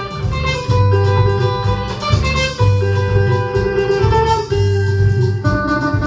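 Electric guitar and bass guitar played together through an amplifier: the guitar holds ringing notes over a repeating bass line that comes round about every two seconds.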